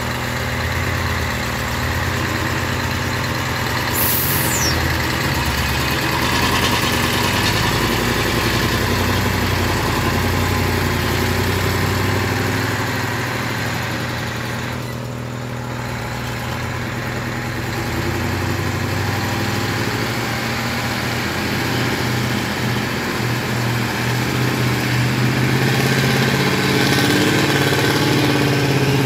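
Diesel engine of a heavily loaded flatbed firewood truck running steadily as it crawls along a gravel road, a continuous low hum that grows somewhat louder near the end.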